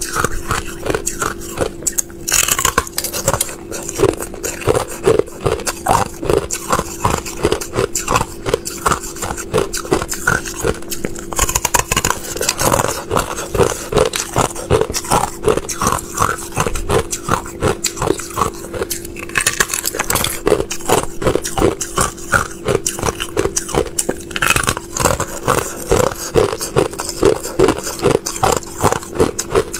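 Thin sheets of clear ice being bitten and chewed: a steady run of sharp, crackling crunches, several a second, with a faint steady hum underneath.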